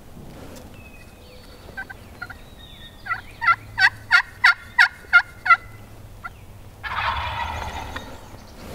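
A series of about eight loud turkey yelps, roughly three a second, made on a hand-held pot-style friction call with a striker. About a second later a wild turkey gobbler answers with a gobble.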